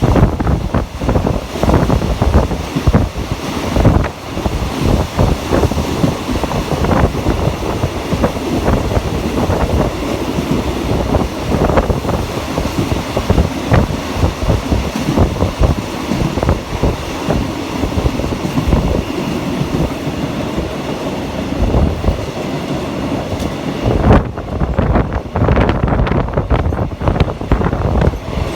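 Passenger train, Rapid Train No. 171, running along the rails: a steady loud rumble with dense, irregular clatter of the carriages. The high hiss thins out near the end.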